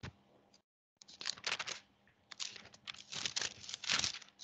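Sheets of paper rustling and crinkling in rapid, irregular bursts as they are handled and leafed through close to a headset microphone. The sound cuts out completely for a moment near the start.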